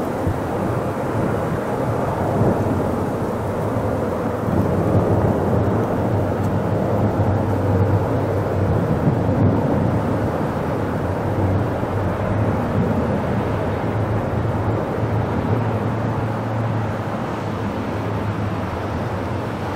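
Diesel-hauled MBTA commuter train pulling away down the line: a steady low rumble of locomotive engine and rolling train, slightly louder in the middle.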